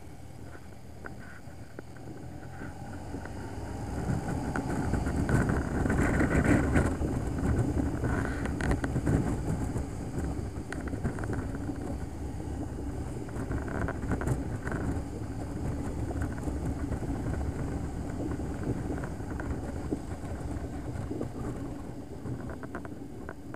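Motorcycle on the move, heard from the rider's position: a steady engine rumble mixed with wind noise, getting louder from about four seconds in and then holding steady.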